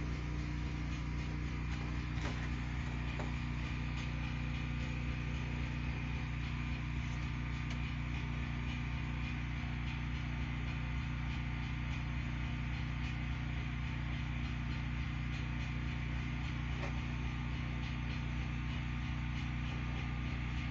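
Tri-fuel portable generator engine running at a steady speed with a low, even hum, still without load before the transfer puts the house and batteries on it.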